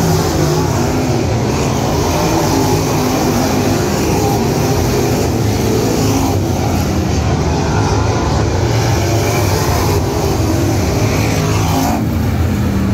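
A field of 604 crate late models with small-block Chevrolet V8 engines running on the dirt oval, a loud, steady engine drone as cars pass the front stretch.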